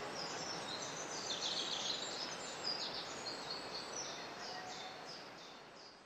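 Many small birds chirping, short high calls overlapping one another, over a steady background hiss; the whole sound fades out near the end.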